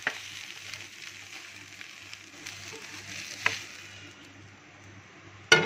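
Shredded chicken filling being tipped and scraped out of a non-stick frying pan onto a plate, with a faint steady rustle, a sharp knock about three and a half seconds in and a loud knock at the very end.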